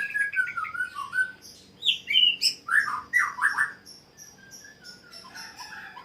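Yellow-vented bulbul (trucukan) singing: a few short phrases of gliding notes, loudest in the first half and fading toward the end, with thin high chirping behind.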